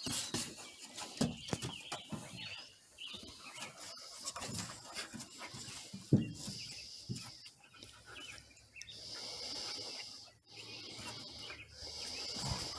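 Two Border Collie puppies play-fighting on wooden deck boards: irregular scuffling and knocks of paws and bodies on the boards, with puppy vocal sounds, and the sharpest knock about six seconds in.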